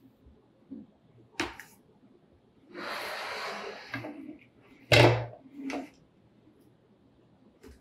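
A take-down recurve bow's limb being slid out of the riser's limb pocket: a sharp knock, a scraping slide lasting about a second, then a loud thump and a lighter knock as the riser is handled and set down on the table.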